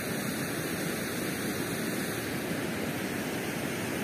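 Steady rush of fast-flowing river water below a dam, an even noise that holds the same level throughout.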